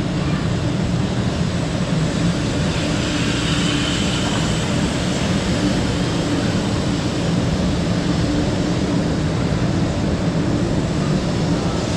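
500 series Hello Kitty Shinkansen running past along the platform at moderate speed: a steady, loud rumble of its motors and wheels.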